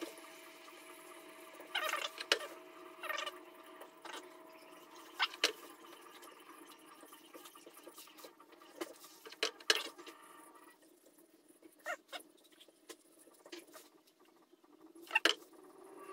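Wood lathe humming steadily as it spins the bowl, with short squeaks and ticks every few seconds from a cloth working cellulose sanding sealer onto the turning wood.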